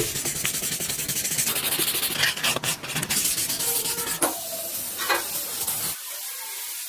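Rapid, dense scraping or rubbing of a hand tool on a surface, made of many quick strokes. About six seconds in it gives way to a thin high hiss.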